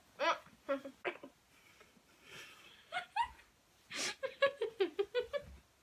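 Stifled laughter through a closed mouth held full of water: short hummed bursts and breaths, coming thick and fast about four seconds in.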